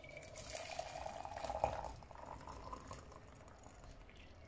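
Hot water being poured into a small stainless-steel turka, a soft splashing that is loudest between about one and two seconds in and then tapers off as the pour ends.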